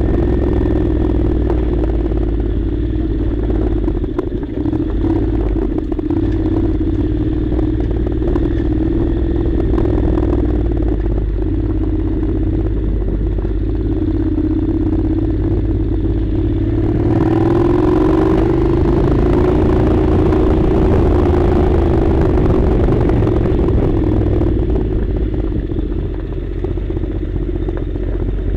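Honda NC700's 670 cc parallel-twin engine running steadily while the motorcycle is ridden off-road, with some clatter. About two-thirds of the way through the engine pulls harder and its note rises, then it eases off near the end.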